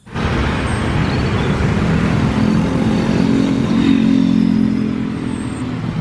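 Twin-engine jet airliner running at high power on the runway: a steady loud rush of jet noise with a low drone underneath.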